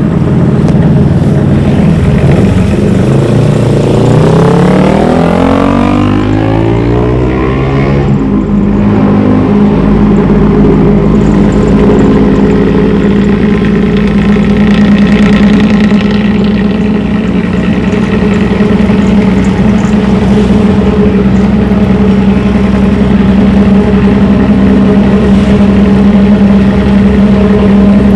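Bus diesel engine through a modified 'ngorok' exhaust with a snoring growl. It revs up, climbing in pitch from about three to eight seconds in, then runs steadily at the higher speed.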